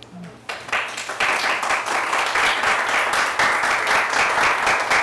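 Applause: several people clapping together, starting about half a second in and carrying on steadily.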